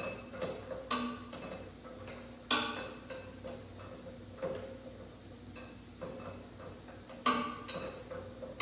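Metal tools and parts clanking as they are handled during backhoe cylinder work: a few sharp metallic knocks a second or more apart, each with a brief ring.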